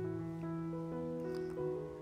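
Background music of slow, held notes that change every half second or so.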